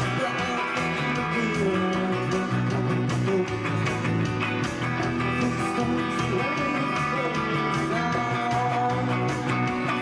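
Live indie rock band playing: guitar with a man singing into a microphone.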